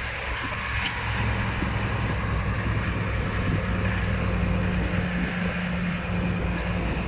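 A motor vehicle's engine running steadily with a low hum, under a steady hiss.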